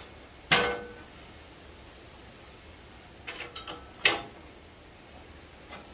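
Two sharp metal clanks about three and a half seconds apart, the first ringing briefly, with a short rattle of lighter clicks just before the second: tools or steel parts knocked and handled during work on a truck frame.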